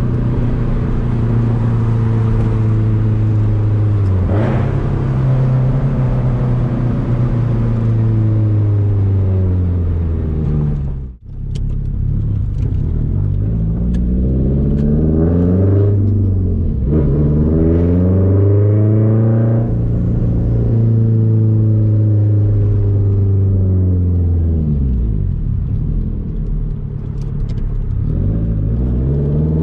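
The straight-piped 2004 Subaru WRX STI's turbocharged 2.5-litre flat-four is heard from inside the cabin, pulling through the gears and slowing again: its pitch climbs, drops at each shift and falls away repeatedly. The sound dips sharply for a moment about eleven seconds in. A few sharp pops come through later on.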